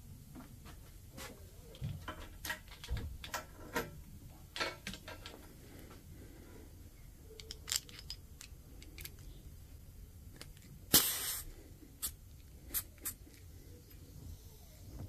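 Metal quick-connect fittings on a red air hose being handled and pushed together, giving a scatter of small clicks and taps. About eleven seconds in comes a short burst of compressed-air hiss, the loudest sound, followed by a few more clicks.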